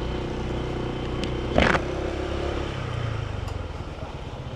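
Honda ADV 160's single-cylinder scooter engine running at low speed, picked up by a helmet mic. A short, loud burst of noise about a second and a half in.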